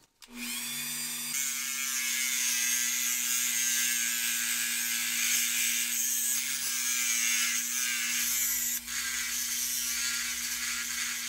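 Small handheld rotary tool spinning a mini cutoff disc, cutting a post out of a toy truck part: a steady motor whine under a high grinding hiss, with a brief dip about nine seconds in.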